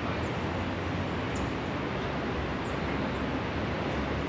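Steady outdoor city ambience: an even hiss with a low rumble of distant traffic, and a few faint high chirps.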